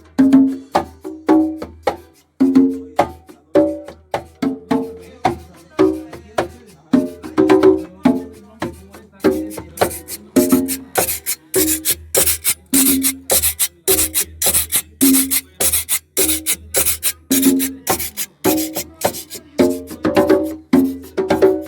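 Band music with a steady beat and no singing: short, clipped instrumental notes repeat in a rhythm, and about ten seconds in a bright, hissy percussion stroke joins and keeps time with them.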